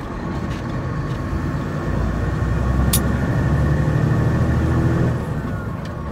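Semi truck's diesel engine running while driving, heard from inside the cab, growing louder about two seconds in and easing off again near the end. A single sharp click sounds about halfway through.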